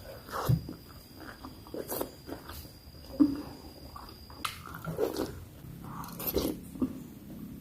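A person biting and chewing bakso meatballs close to the microphone: irregular wet mouth smacks and chews, one every second or so.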